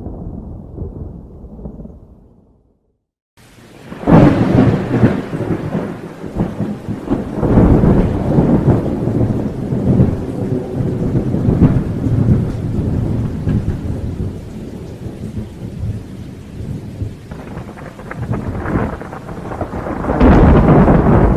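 Thunder: a low rumble dies away to silence, then a loud crack about four seconds in opens a long rolling rumble with repeated cracks under steady rain, swelling into another loud peal near the end.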